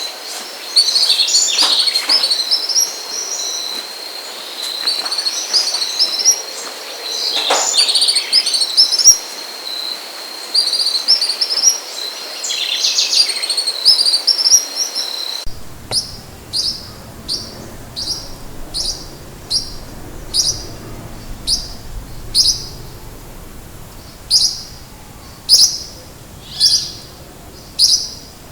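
Wild birds singing together in a dense chorus of high chirps over a steady high tone. About halfway through, the sound changes abruptly to a single bird repeating a short, sharp high call roughly every 0.7 seconds.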